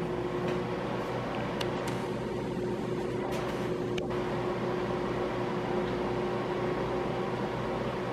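Microwave oven running with a steady hum, a few faint ticks about one and a half and three to four seconds in.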